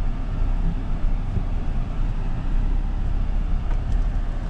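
2020 Mahindra Thar's engine running at low speed while driving over dirt: a steady low rumble.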